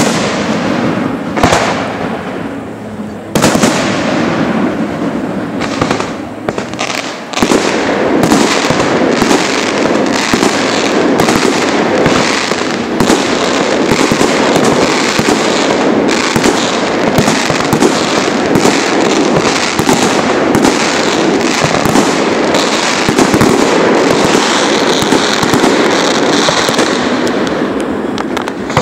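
Aerial display fireworks going off: a few separate shell bursts, the biggest about three and a half seconds in, then from about seven seconds a dense, rapid barrage of bangs and crackling that keeps up to the end.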